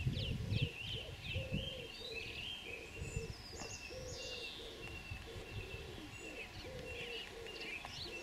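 Birdsong: many high chirping and trilling calls, over a steady series of low cooing notes. Low rumbles in the first second die away.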